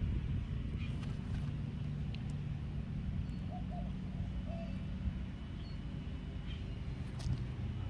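Outdoor background: a steady low mechanical hum, like a distant engine or machinery, with a few faint bird chirps.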